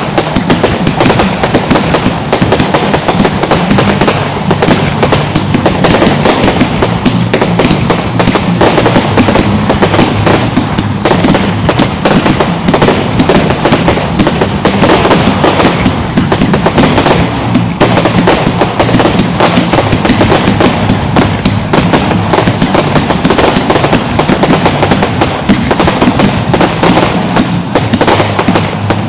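Fireworks display: a dense, continuous barrage of bangs and crackling from aerial shells bursting overhead, with no let-up.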